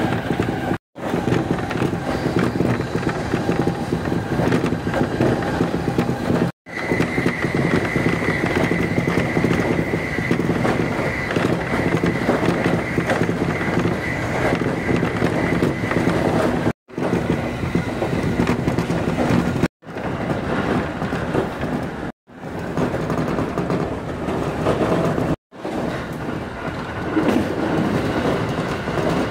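Electric commuter train running at speed, heard from inside the carriage: a steady rumble of wheels on rails, with a steady high whine for about ten seconds. The sound cuts out for an instant six times.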